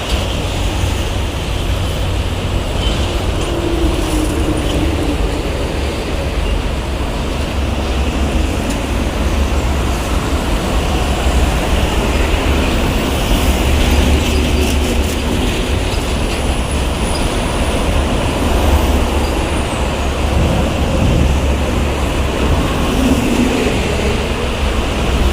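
Heavy highway traffic of trucks and buses passing, a steady loud rumble of engines and tyres.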